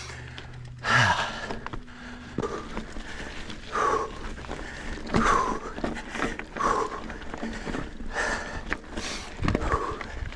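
A man breathing hard in heavy, regular breaths, about one every second or so, from the effort of riding a mountain bike up a steep section, with a few small knocks in between.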